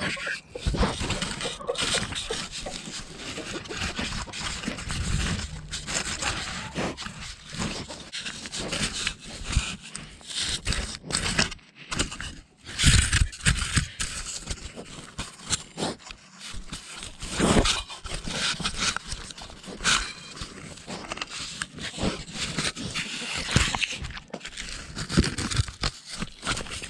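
Mini pig rooting in dirt and debris with a camera strapped to her body, heard as irregular close-up scraping, rustling and crackling with a few louder knocks.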